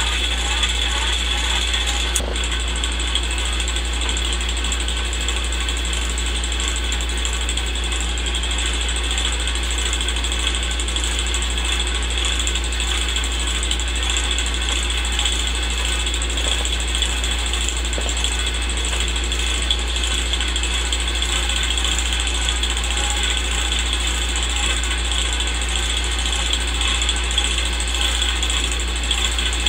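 Old film projector running: a steady mechanical clatter of the film transport over a constant low hum.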